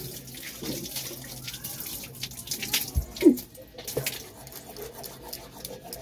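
Water splashing and dripping at a hand pump as someone rinses their mouth from a cupped hand, in irregular splashes, with a low thump and a brief squeak a little past three seconds in.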